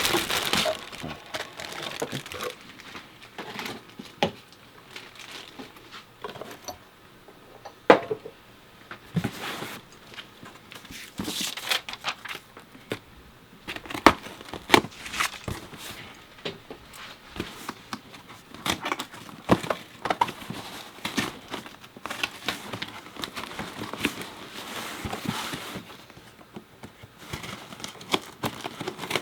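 Packaging crinkling and rustling as it is handled by hand, broken by scattered sharp clicks and knocks, two louder ones about 8 and 14 seconds in.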